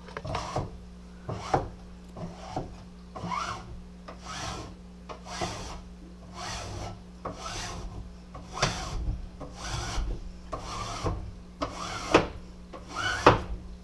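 A plastic squeegee rubbing across vinyl backdrop material, pressing it flat onto the back of a glass tank in quick repeated strokes, some of them squeaking.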